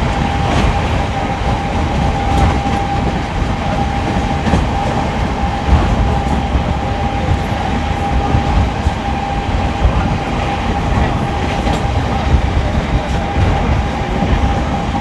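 Express passenger train running at speed, heard from on board: a steady rumble of wheels on rail with some clickety-clack over the joints and a thin steady whine.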